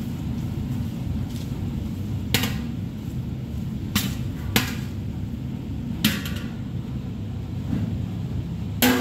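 Metal slotted spoon clanking against a large stainless steel pan while scooping cooked pasta: about five sharp clanks, the last near the end with a brief metallic ring. A steady low hum runs underneath.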